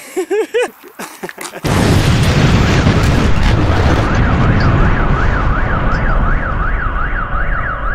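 A brief laugh, then a sudden loud explosion about a second and a half in, with a long rumbling tail. A car alarm then starts wailing, its tone sweeping up and down a couple of times a second.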